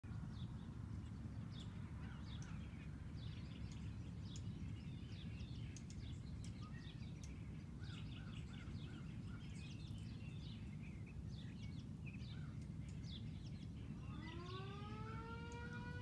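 Small birds chirping over a steady low outdoor rumble. About two seconds before the end, a Vixen Horn siren starts winding up, its tone rising steadily.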